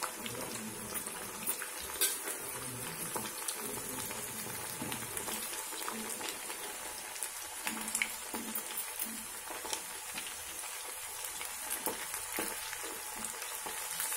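Batter-coated chicken pieces deep-frying in hot oil on medium heat, a steady bubbling sizzle. A ladle stirs them, with a few sharp taps against the pan.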